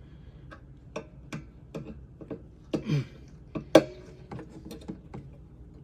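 Irregular light clicks and taps of wires and small metal parts being handled at an air compressor's wiring terminals, with one sharper click that rings briefly a little past the middle.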